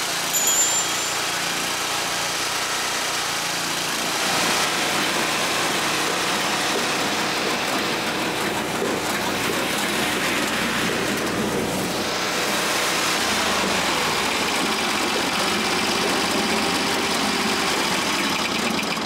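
Hakki Pilke Raven 33 firewood processor running, its Vanguard gasoline engine driving the machine with a steady mechanical noise that rises slightly about four seconds in. There is a brief high squeal about half a second in.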